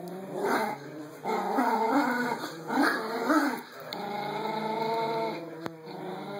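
Yorkie-Pomeranian mix puppies growling in a tug-of-war over a rope toy. A run of short growls comes first, then a longer steady growl about four seconds in.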